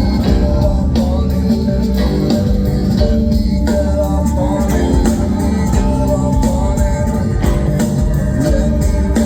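Live rock band playing loud amplified music with a steady drum beat and heavy bass, during a stretch with no words sung.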